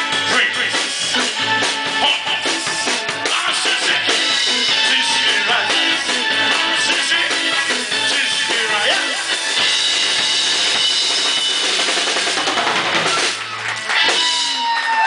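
Live band playing rock and roll on drum kit and guitars, closing on a final flourish near the end.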